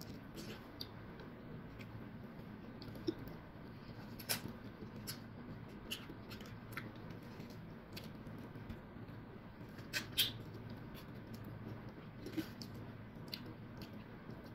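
Eating and handling orange peels: scattered faint clicks and small wet smacks as the leftover orange flesh is pulled and scraped from squeezed peels with fingers and a small knife and eaten, over a faint low hum. The loudest clicks come about 3, 4 and 10 seconds in.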